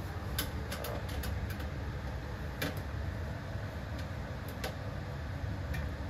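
Hands working on a plastic box fan's housing and feet: scattered light clicks and knocks, about six in all, over a steady low hum.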